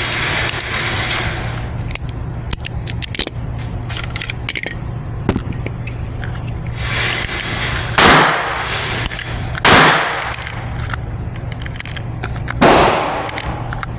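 Three gunshots with range echo: one about eight seconds in, another under two seconds later, and a third near the end, over a steady low hum.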